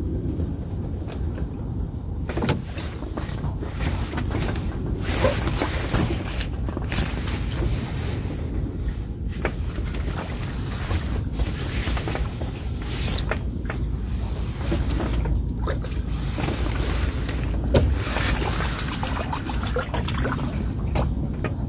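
Steady low rumble with uneven rustling and handling noise close to the microphone, and a few sharp knocks.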